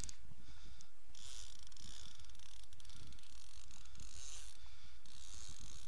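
Fishing reel being wound against a hooked fish, its gears ticking in two spells, over a steady low rumble.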